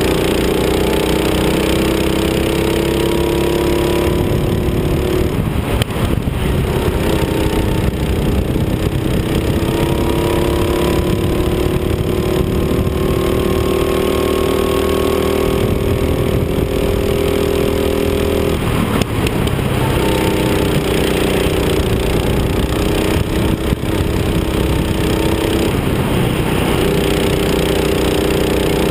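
Rental go-kart's small single-cylinder engine running hard, heard from onboard the kart; its note climbs slowly as it accelerates, then drops briefly three times before climbing again.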